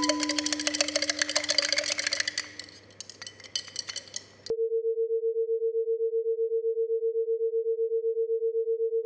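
Rapid light clinking and ticking over a held note, thinning out over the first few seconds. Then, about four and a half seconds in, a single steady electronic tone starts abruptly and holds with a fast, slight wobble, like a dial tone.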